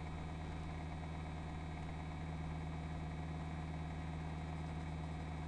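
Steady low hum over a faint even hiss, with no other sounds: the background noise of the narration recording between spoken lines.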